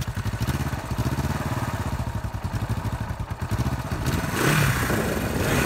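1973 Honda CB450's parallel-twin engine idling steadily, warm from a recent ride so it runs without the choke. It is briefly a little louder about four and a half seconds in.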